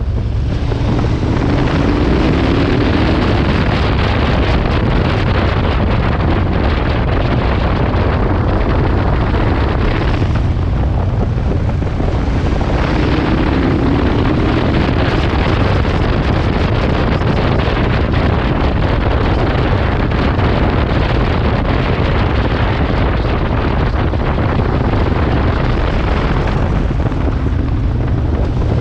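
Wind rushing over a helmet-camera microphone while riding a KTM 1290 motorcycle, with its V-twin engine running underneath. The engine note climbs as the bike accelerates, about a second in, again around the middle, and once more at the end.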